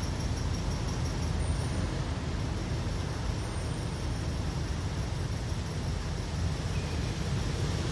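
Steady low rumble of a second-generation Honda CR-V on the move, road and running noise, with no distinct knocks standing out.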